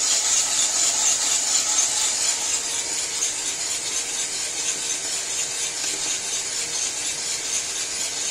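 Cormorant CR600 Electric coffee roaster running, a steady rattling rush of beans churning and the roaster's fan, with the beans popping at the beginning of first crack.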